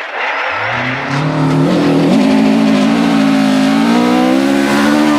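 Rally car engine at full throttle, coming in about half a second in, climbing in pitch and then held at high revs.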